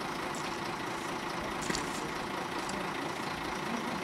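An engine idling steadily, with a short click a little under two seconds in.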